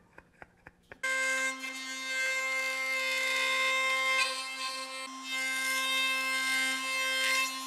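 Brushless compact router spinning at speed and cutting aluminium frame stock against a template: a steady high-pitched whine over a hiss of cutting. It starts about a second in, with a few brief dips in level.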